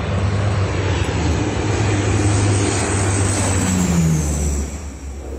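A large engine running steadily, with a low hum under a rushing hiss, quieter near the end.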